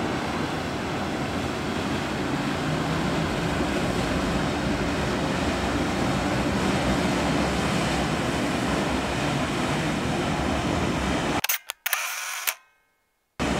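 Steady rumble and water wash of a passing inland motor tanker, with wind on the microphone. About eleven seconds in, the sound breaks up with a few clicks and cuts out for about a second before coming back.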